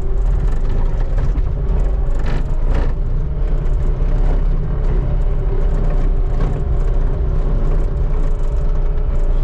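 Skid steer engine running steadily under load while scraping snow, with a couple of brief clatters about two and three seconds in.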